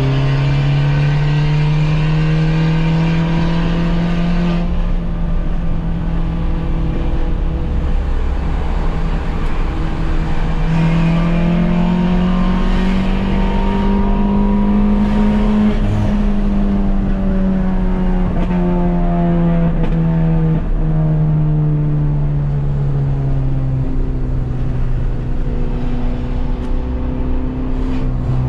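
Peugeot 206 1.4 four-cylinder engine through a straight-through exhaust, with no silencer, running loud while driving. The engine note holds level for a while, climbs for about five seconds past the middle of the stretch, then sinks slowly and settles.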